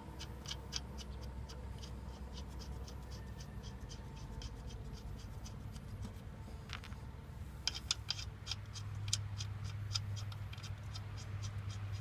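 Lug nuts being spun by hand onto a car wheel's studs: a run of light, regular clicks, about three a second, pausing briefly about five seconds in, then picking up again faster.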